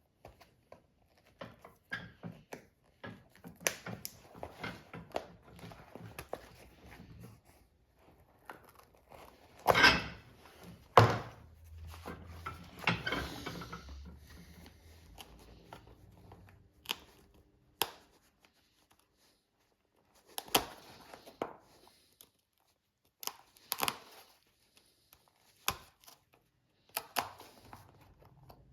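Irregular workshop handling sounds of boot repair: tearing and crinkling with sharp knocks and taps of tools, the loudest two knocks about ten and eleven seconds in.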